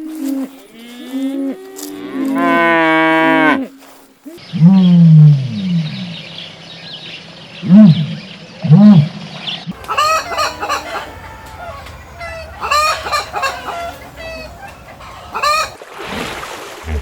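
Cattle mooing, then chickens clucking and calling in short, quick repeated calls from about halfway through.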